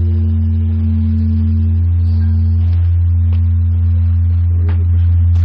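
Large Korean Buddhist bronze temple bell (beomjong) ringing on after a strike: a loud, steady low hum with higher tones held above it that slowly waver in strength. Faint voices come in near the end.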